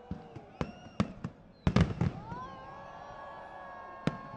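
Aerial fireworks bursting overhead: a string of sharp bangs and crackles, the loudest cluster a little under two seconds in, with a long whistling tone held through the second half.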